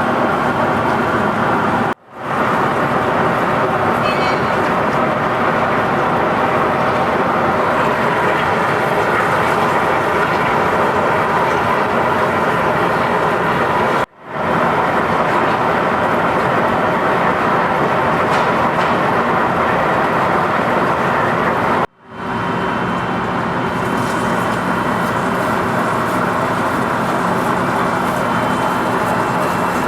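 Lathe running while turning a large pot-bearing part: a steady machining noise. It drops out suddenly three times and fades back in each time.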